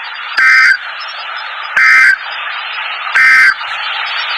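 Three short bursts of Emergency Alert System data tones from a NOAA Weather Radio broadcast, evenly spaced about a second and a half apart, over a steady radio hiss. They are the end-of-message signal that closes the tornado warning broadcast.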